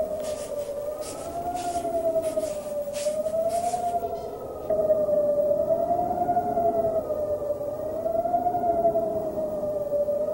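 A siren-like tone rising and falling slowly, about once every two and a half seconds. For the first four seconds a quick hissing beat of about three strokes a second goes with it. A little later the sound steps up in loudness.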